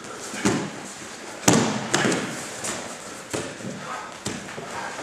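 Two grapplers' bodies and feet thudding and scuffling on a padded mat: about half a dozen sharp thumps, the loudest about a second and a half in, with shuffling and rustling between them.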